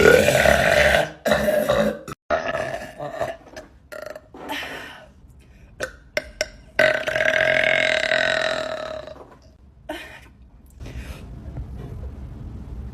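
A woman burping over and over: a loud burp right at the start, a string of shorter burps, then one long drawn-out burp about seven seconds in. A low steady rumble takes over near the end.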